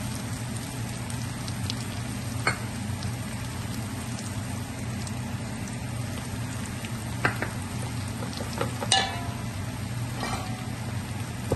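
Onions, ginger, garlic and curry leaves sizzling steadily in hot oil in a metal pan, with a few sharp clicks of a spatula against the pan. The loudest click comes about nine seconds in.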